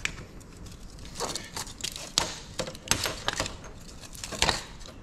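Cutting pliers biting and prying at a copper radiator coil: irregular sharp metallic clicks and snaps, loudest about four and a half seconds in, as the copper pieces are cut and worked loose from the surrounding metal.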